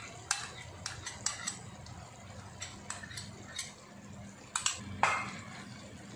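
Utensils clinking and knocking against a nonstick wok as mayonnaise is scraped from a pouch onto chicken and stirred in. The sharp knocks come irregularly, and the loudest one falls about five seconds in.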